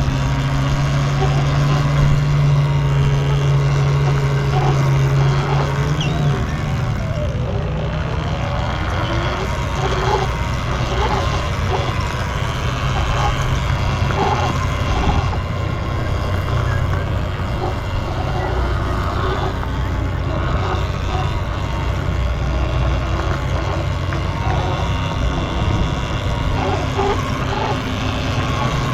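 Steady low rumble of vehicle noise, with a steady low hum that stops about six seconds in.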